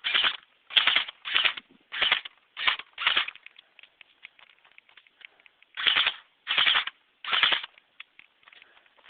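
Tokyo Marui MP5 electric airsoft gun firing short bursts of BBs on full auto: about six quick bursts, a pause of a couple of seconds, then three more, with faint ticks in between.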